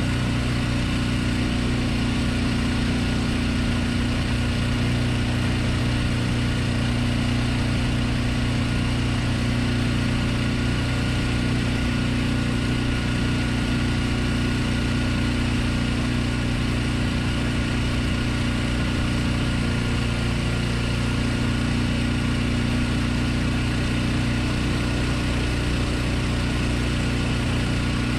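Stock 13 hp single-cylinder Predator engine on a Backwater Swomp Lite longtail mud motor running at a steady speed, pushing a jon boat, with an even, unchanging engine note.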